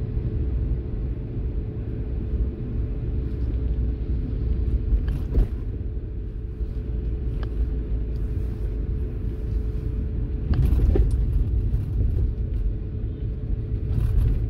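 Car cabin noise while driving: a steady low rumble of engine and road with a steady hum, broken by a few faint knocks about five and eleven seconds in.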